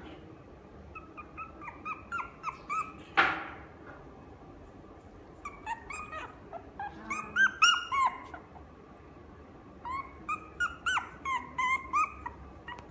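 Maltese–Chihuahua mix puppy making short, high-pitched whines and yips in bursts. A louder yelp comes about three seconds in, and the loudest yips come around the eight-second mark.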